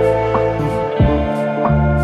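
Background music: plucked notes over a sustained bass line, with a light, regular beat.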